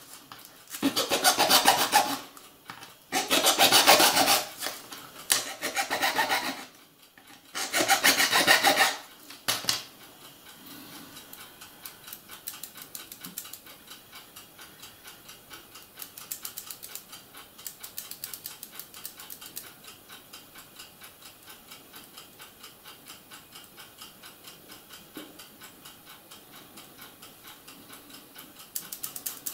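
A hobby knife scraping and cutting along the plastic sleepers of an H0 Piko A model railway track, in four or five spells of rapid strokes over the first ten seconds. After that only a faint, regular ticking is left.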